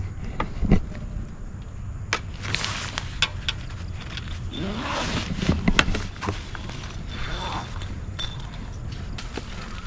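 Heavy canvas cover of a roof-top tent being pulled and folded back by hand, rustling in several swishes, with scattered small clicks and jingles from its fittings.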